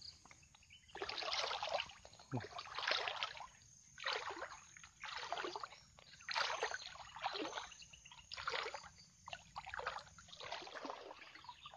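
Legs wading through knee-deep swamp water, a rhythmic sloshing and swishing with each stride, roughly one a second.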